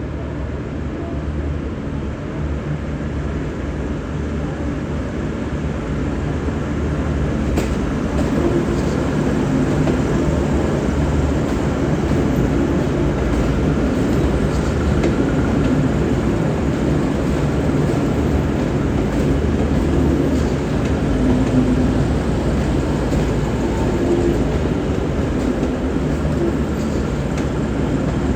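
Diesel train running with a steady low engine rumble, growing louder about six seconds in and then holding.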